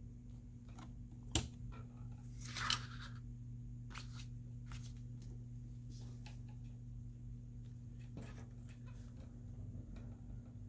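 Light clicks and taps of a smartphone being handled and tested, with one sharper click about a second and a half in and a brief rustle of film or plastic shortly after, over a steady low electrical hum.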